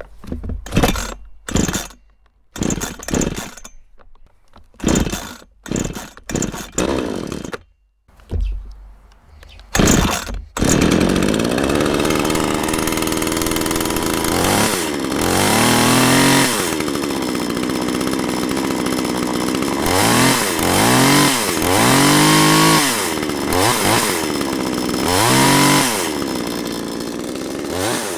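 Two-stroke chainsaw being pull-started: about eight short separate bursts over the first ten seconds. It catches near the ten-second mark, then runs steadily and is revved up and back down again and again, its engine pitch rising and falling.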